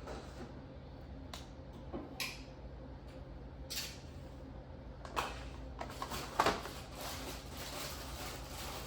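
Short scattered rustles and rubbing of a wet wipe being worked over a child's hands, the loudest just after five and six seconds in, turning into a steady soft rustle near the end.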